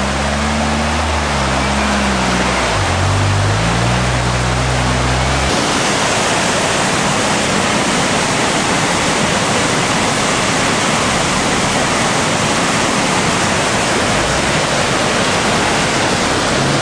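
Off-road 4x4's engine revving unevenly as it fords the river, heard over rushing water for about the first five seconds, then stopping. After that only the steady rush of river water cascading down a rocky drop.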